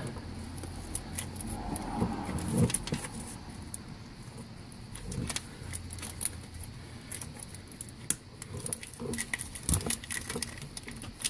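Plastic oxygen-sensor wiring connector being worked by a gloved hand, making small irregular clicks and rattles as it is pushed and wiggled without latching. It will not seat because a piece of the old plug is stuck in the mating half. A low steady hum runs underneath.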